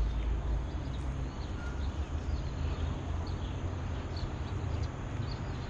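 Outdoor ambience: a steady low rumble with scattered short, faint high chirps of small birds.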